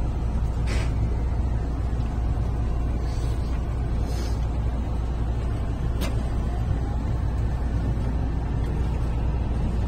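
JR Central 313 series electric train pulling slowly away from a station, heard from inside at the front: a steady low running rumble with a few short hisses and one sharp click about six seconds in.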